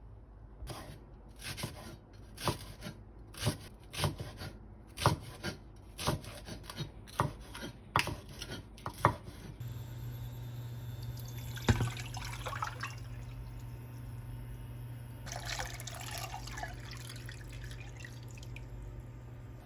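A kitchen knife chopping on a cutting board, about two chops a second, for roughly the first nine seconds. Then a steady low hum starts, with two short stretches of scraping or stirring noise.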